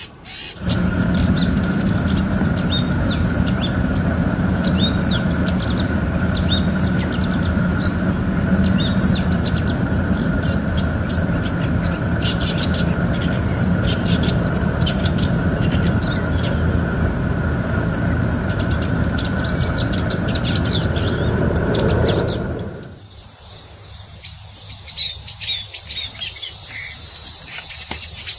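Many short, high bird chirps and calls over a loud, steady low rumble. The rumble cuts off abruptly about 22 seconds in, leaving the chirps over a thin, high, steady insect-like hiss.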